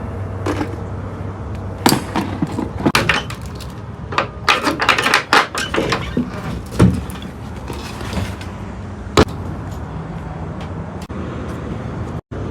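Work handling noises: a run of knocks, clicks and rustles, busiest in the middle, and a single sharp click later on, over a steady low hum.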